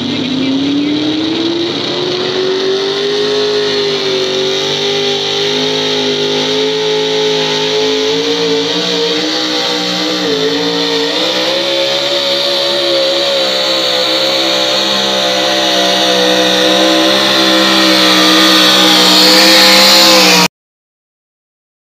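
Pickup truck's engine held at high revs under heavy load as it drags a weighted pulling sled. It climbs in pitch over the first few seconds, then runs steady and grows louder before cutting off suddenly near the end.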